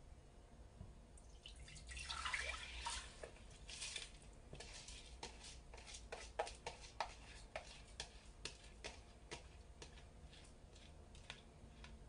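Quiet sound of rinsed, wet rice being tipped from a plastic bowl into a Staub cast-iron pot: a short swishing pour about two seconds in, then scattered small clicks and taps as the grains drop and the bowl is tapped and scraped.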